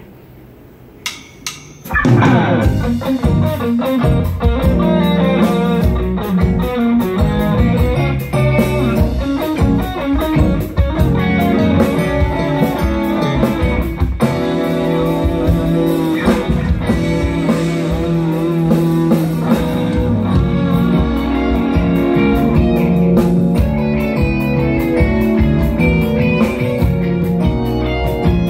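Live band of electric guitars, bass guitar, keyboard and drums playing a loud rock song through the club PA. The band crashes in about two seconds in, after a couple of sharp clicks.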